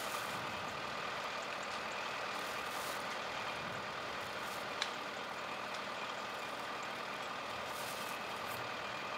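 A steady mechanical drone, with a single short click about five seconds in.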